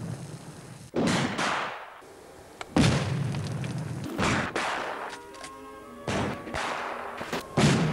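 A string of explosion bangs and booms from homemade black-powder and gasoline charges, about eight in quick succession, each sudden and then fading, with music underneath.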